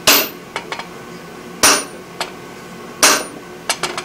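Three heavy hammer blows, about a second and a half apart, strike a handled top fuller held on red-hot steel on an anvil, each blow with a short metallic ring. Lighter clinks come in between.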